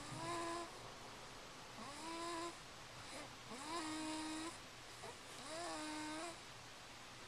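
Snoring in sleep: four pitched, tonal snores about two seconds apart, each rising in pitch at its start and then holding a steady tone, with quieter breaths between.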